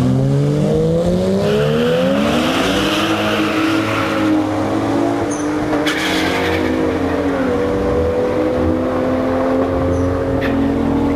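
Race car engine revving up and held at high revs during a burnout, with tires screeching for a couple of seconds early on. The revs ease down a little about seven seconds in and then hold steady.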